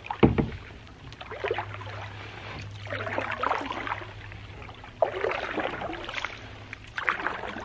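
Canoe paddle strokes: a wooden paddle pulled through the water about every two seconds, each stroke a swish with dripping. A single low thump just after the start is the loudest sound.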